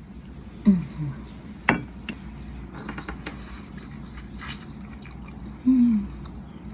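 Clicks and clinks of boiled crab shell and eating utensils being handled at a meal, with a few short falling hums from a voice.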